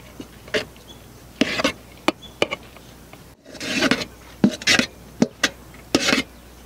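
Irregular series of short rasping scrapes and knocks of utensils being worked in a cooking pot, a few of them drawn out into longer scrapes.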